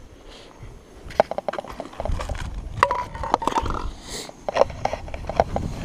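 Footsteps and handling noise on bare granite, with a series of short knocks and clicks and a brief metallic ring about three seconds in, typical of metal camp mugs knocking together as they are carried.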